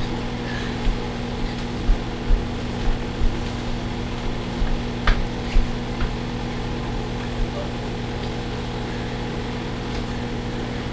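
Microwave oven running with a steady hum, with soft low thumps every second or so and a sharp click about five seconds in.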